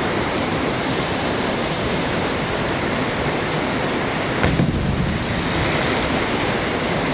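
Steady rushing of river water, an even hiss, with a brief low bump about four and a half seconds in.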